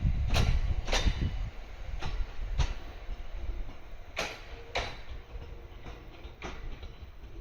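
701 series electric train rolling slowly over a rail joint. Its wheels clack in pairs about every two seconds over a low rumble, fading as the train moves away.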